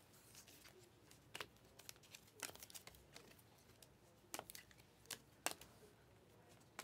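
Faint slides and clicks of glossy chromium trading cards being flipped through one by one in the hand, a card edge snapping against the stack every second or so at irregular intervals.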